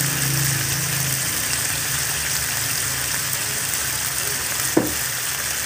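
Chicken adobo pieces frying in hot oil in a pan, a steady sizzle. One short sharp click near the end.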